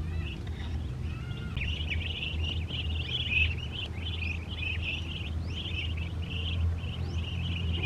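A flock of ducklings peeping: a dense, continuous run of short, rising high chirps, with a steady low rumble underneath.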